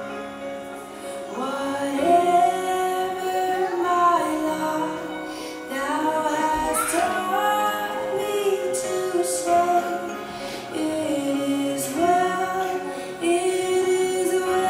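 A song: a woman's singing voice holding long, gliding notes over instrumental backing.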